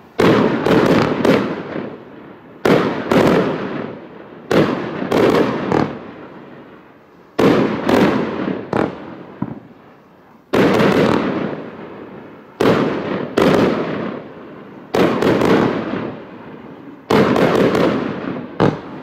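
Skycrafter Raging Inferno firework cake firing. Every two seconds or so comes a volley of two to four sharp bangs, each volley dying away before the next.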